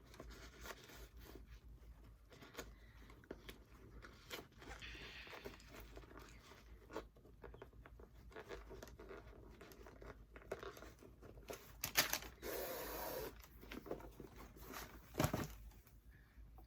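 Shoelaces being pulled and threaded through the eyelets of a pair of leather sneakers by hand: irregular rustling, scraping and crinkling handling noise. There is a longer, louder rustle about twelve seconds in and a single sharp knock about fifteen seconds in.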